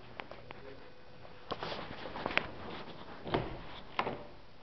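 Scattered knocks and rustling handling noises, with the sharpest knock about two and a half seconds in and another near four seconds.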